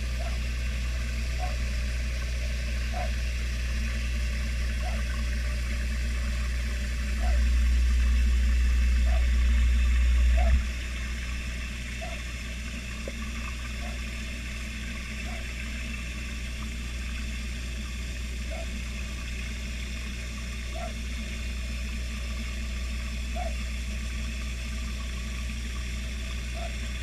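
A steady low hum with a faint hiss of moving water and soft pips every second or two. About seven seconds in the hum swells louder for roughly three seconds, then settles back.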